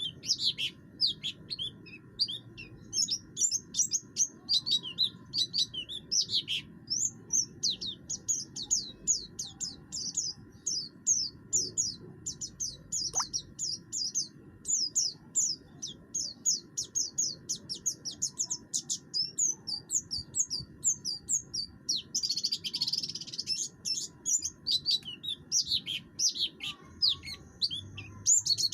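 A buxtoni white-eye (pleci buxtoni) singing non-stop in rapid runs of short, high chirps and sweeps, with a harsh, raspy burst about two-thirds of the way through. A low steady hum sits underneath.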